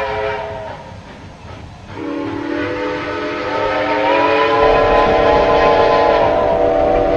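Steam whistle of a steam-powered sawmill blowing. One blast fades out in the first second or two, then a second blast starts about two seconds in and swells louder, held to the end.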